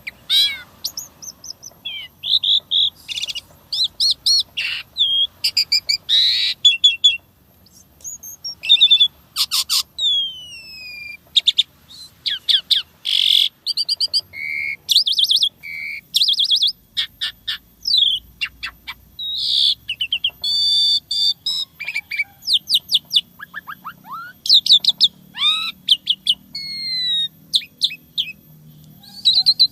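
Asian pied starling (jalak suren) singing a long, varied song of quick chirps, rattling note series and falling whistles, broken by short pauses between phrases.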